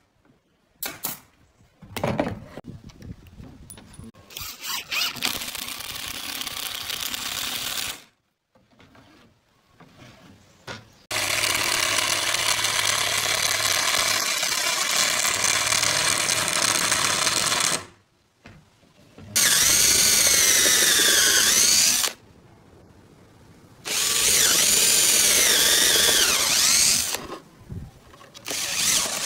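Cordless drill running in long loud stretches, boring holes into pallet-wood boards with a twist bit. In the last two runs its whine dips and recovers as the bit bites into the wood. Near the start, a few sharp shots of a brad nailer.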